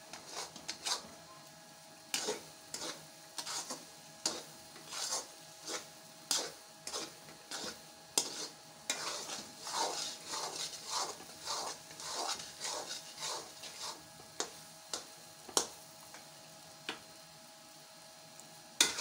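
A metal spoon stirring and scraping crumbly egg halwa around a steel pan in quick, irregular strokes, with the halwa sizzling as it fries. This is the final roasting stage, cooking the halwa until it turns granular. The strokes pause briefly near the end.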